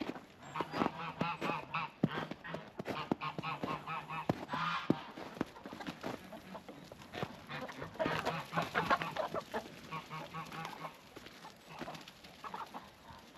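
A flock of geese honking, many overlapping calls coming in waves, with short sharp clicks among them.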